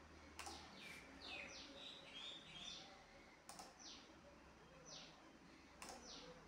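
Faint bird chirps: short calls falling in pitch, repeating irregularly with a quick cluster about two seconds in, over a low background hiss, with a few faint clicks.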